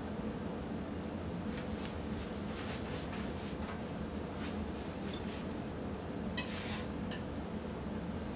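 Scattered faint clicks and taps of painting tools being handled, with a short scraping rattle near the end, over a steady low room hum.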